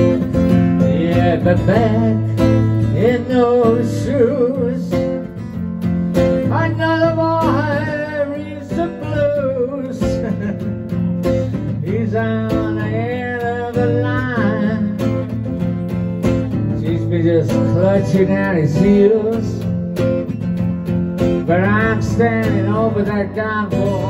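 Strummed steel-string acoustic guitar chords under a man singing in phrases, with breaks between the sung lines while the guitar carries on.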